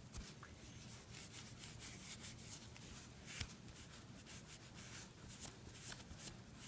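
Faint cloth rubbing on a small hardwood pipe, polishing in its beeswax finish: an uneven run of short, scratchy strokes.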